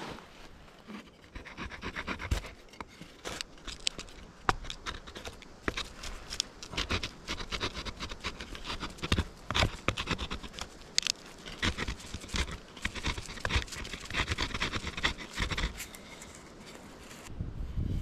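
A grass tree flower stalk being scraped by hand to strip off its outer fibres, in quick irregular scraping strokes with sharp scratchy strikes. The scraping stops near the end.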